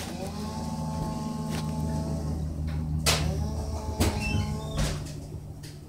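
An engine running steadily at low speed, with three sharp knocks about three, four and five seconds in.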